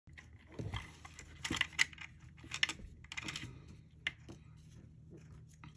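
Light clicks, taps and rustles of small plastic and metal parts of a radio-controlled buggy kit being handled, coming in short clusters about once a second.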